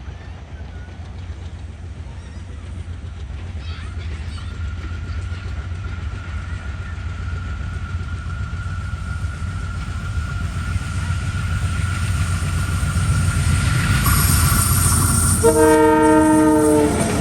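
An intercity passenger train approaches, its rumble growing steadily louder with a thin, steady high whine over it. Near the end the locomotive's horn gives one loud blast of about a second and a half.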